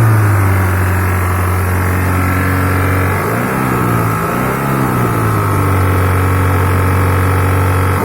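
Hyundai Santro's four-cylinder petrol engine running at a steady speed, revved up and let back down briefly twice in the middle. The title presents the engine's sound as a problem.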